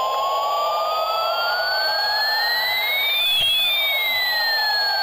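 Electronic siren-like tone: two steady pitches glide slowly in opposite directions, one rising and one falling. They meet about three and a half seconds in, then pass and separate again, over a constant hiss.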